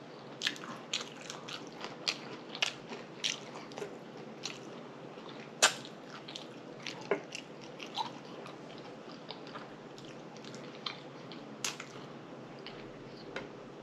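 Close-miked mouth sounds of a person chewing food: irregular wet smacks and clicks, with a sharper smack about five and a half seconds in and another near twelve seconds.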